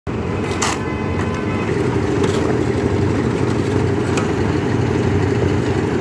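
Construction machinery running with a steady, loud low drone throughout, with a few short sharp clinks over it.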